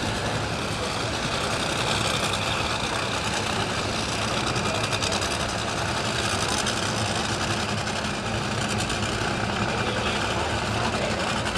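Dragster engine idling steadily, a continuous rough engine sound with no launch or hard revving.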